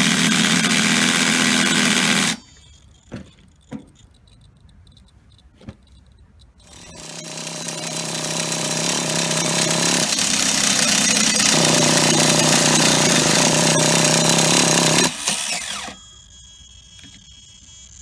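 Starter motor spinning over the GO R/C 28R prototype gasoline engine of a 1/8 RC truggy in two long bursts, the first ending about two seconds in, the second building up from about seven seconds in and cutting off near fifteen seconds. The engine does not catch, because of a spark problem. A few light clicks fall between the bursts.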